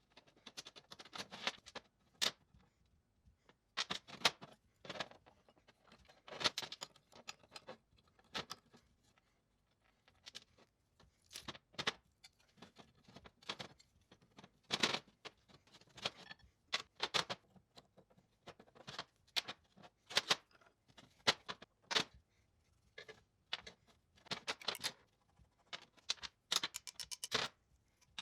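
Light metal clicks, taps and scrapes from hand tools working on old engine parts, coming in short irregular clusters.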